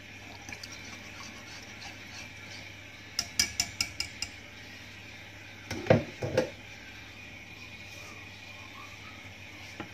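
A metal wire whisk clicks against a nonstick pan in a quick run of about seven taps while yogurt is whisked into paprika sauce. A couple of seconds later come two or three louder knocks of the whisk on the pan.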